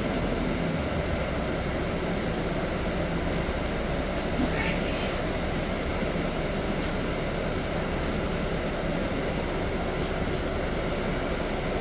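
City bus running, a steady drone of motor and road noise, with a sharp hiss that starts about four seconds in and lasts a couple of seconds.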